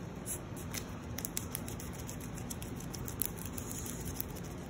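Gloved hands rolling periodontal dressing into a rope on a paper mixing pad: faint rubbing with scattered light ticks.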